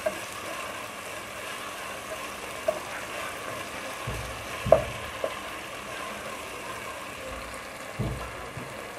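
Sliced onions with ginger-garlic paste and whole spices sizzling in hot oil in a non-stick pan while being stirred and fried down (koshano), with a few knocks of the stirring utensil against the pan; the loudest knock comes almost five seconds in.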